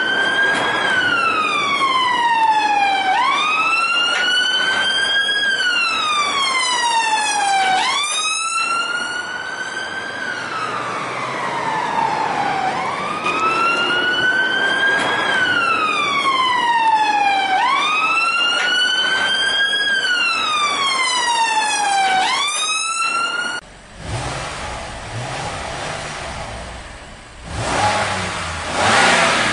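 Electronic wail siren, its pitch rising and then sliding slowly down about every two and a half seconds, repeated many times before it cuts off suddenly about 23 seconds in. A rougher rushing, motor-like noise follows and swells near the end.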